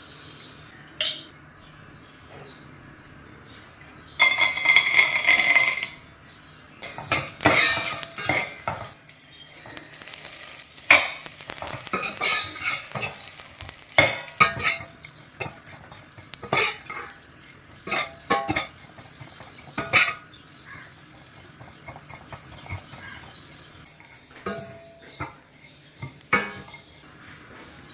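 Metal cooking utensils clinking and scraping against pots and pans as food is stirred, in irregular clatters and knocks. About four seconds in there is a loud rush of noise lasting about two seconds.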